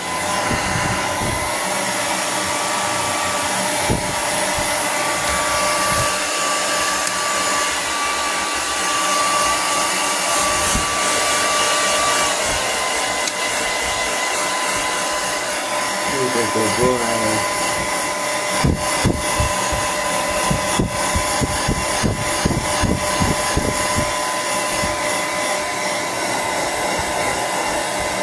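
Handheld hair dryer blowing steadily on a wet dog's coat, with a steady motor whine that steps up slightly in pitch a couple of seconds in and drops back about halfway through. Irregular knocks and bumps come through over the blowing in the second half.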